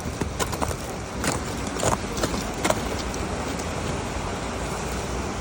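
Wind buffeting the microphone in a steady rumbling rush, with a few sharp clicks in the first three seconds.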